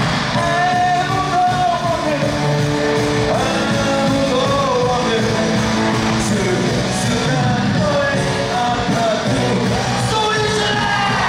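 Live rock-pop music in an arena: a sung melody with long held notes over an amplified band, with the big room's echo.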